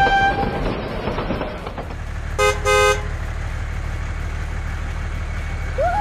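A horn tone cutting off just after the start, then two short horn toots about two and a half seconds in, over a steady low engine drone: the kind of train horn and engine sounds that go with a toy train. Near the end a sliding whistle-like sound begins.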